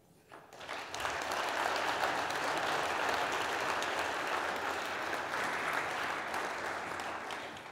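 Audience applauding at the end of a talk: the clapping builds up within the first second, holds steady, and fades away near the end.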